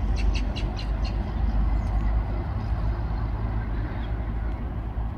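Steady low rumble of city traffic, with a quick run of short ticks in the first second.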